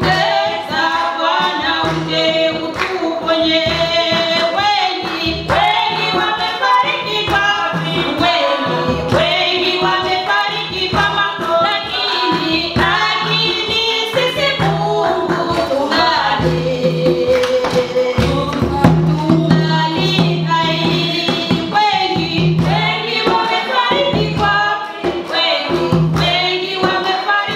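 Choir and congregation singing a Swahili gospel song of thanksgiving with instrumental backing and a steady beat.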